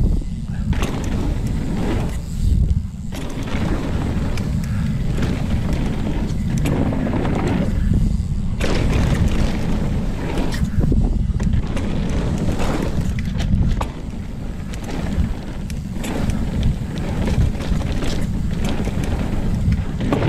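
Wind buffeting a chest-mounted action camera's microphone during a fast mountain-bike descent, a constant low rumble. Over it come irregular knocks and rattles from the bike and its tyres hitting bumps and roots on a rough dirt trail.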